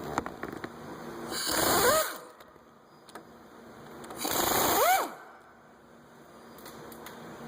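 Two short bursts of a power tool during removal of a front wheel hub assembly, each about three quarters of a second long, its pitch rising as it spins up and dropping as it stops, with a hiss. A few light clicks come before the first burst.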